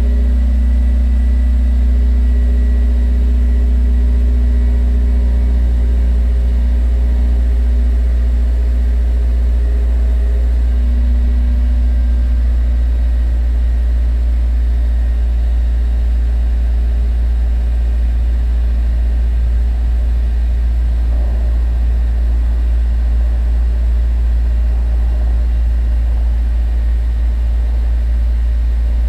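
Subaru Impreza's flat-four boxer engine idling through an STI performance muffler, heard at the quad tailpipes: a steady, deep exhaust rumble that holds an even level.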